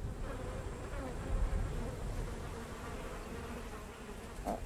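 Insects buzzing over a steady low rumble.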